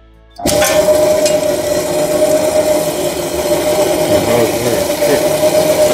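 EB-270DS horizontal metal band saw starting up about half a second in when its sticky solenoid switch is pushed closed, then running steadily with a constant hum: the electrical fault is cured and the saw works.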